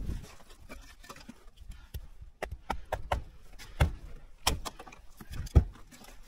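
Hatchet and split firewood kindling knocking on a stump chopping block: a handful of sharp wooden clacks in the second half, the loudest near the end.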